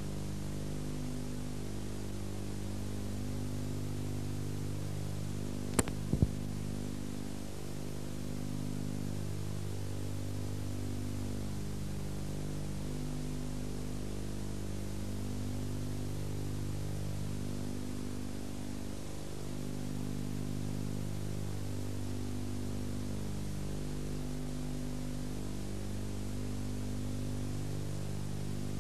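Steady low mains-type hum with hiss on an old videotape soundtrack, with two sharp clicks about six seconds in.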